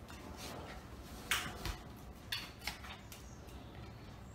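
A wet dog rubbing and rolling himself dry in a padded fabric dog bed: a few short scuffs and rustles, four of them close together in the middle.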